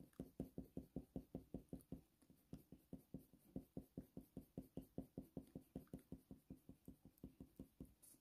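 Faint, quick, even strokes of a Faber-Castell Polychromos colour pencil shading on hot-press watercolour paper, about five or six a second, with a short pause about two seconds in and stopping near the end.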